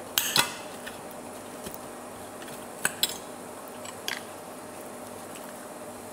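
Metal fork and knife clinking against a ceramic plate while eating: a quick cluster of clinks at the start, two more about three seconds in and one near four seconds.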